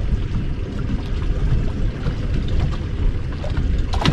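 Water sloshing against a boat's hull, with low rumbling wind on the microphone; a brief sharp sound near the end.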